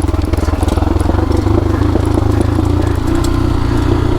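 Single-cylinder dirt bike engine running at low, steady revs on a downhill trail stretch, with a slight change in pitch about three seconds in.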